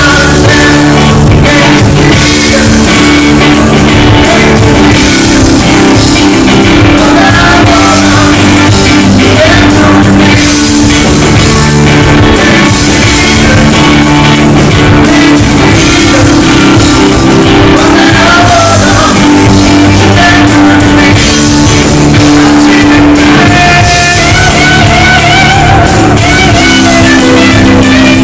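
Live rock band playing loud: electric guitar, keyboard and drum kit under a lead singer's vocals.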